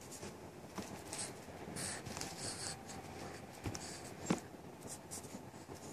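Soft rustling and rubbing of cloth as a hand handles a baby's clothing. There are short scratchy bursts about two seconds in and a single sharp click a little after four seconds.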